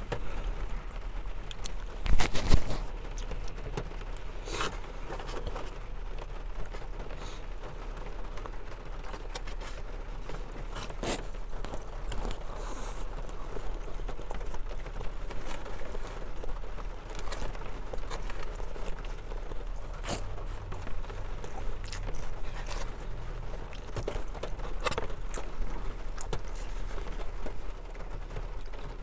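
Eating sounds: a plastic spoon scraping and clicking in a foam takeout box, with chewing, and a louder knock about two seconds in.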